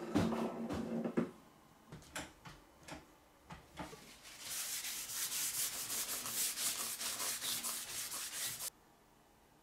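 A metal lamp strip being wiped down with acetone: a clatter of handling at the start, a few single strokes, then a long run of fast, scratchy rubbing strokes along the metal that stops abruptly near the end.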